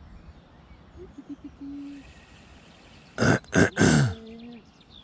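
A man's voice making wordless sounds: a short low hum about a second in, then three loud, short outbursts a little after three seconds, each falling in pitch, and a brief quieter hum after them.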